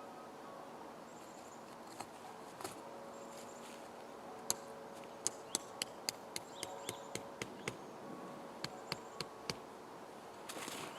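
A run of sharp, light clicks or taps, about two or three a second, starting around the middle and stopping about a second before the end, over a faint steady background hum.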